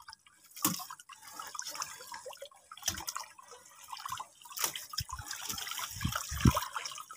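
Water dripping and lapping, with small splashes coming at irregular moments, as river water moves around a wooden boat.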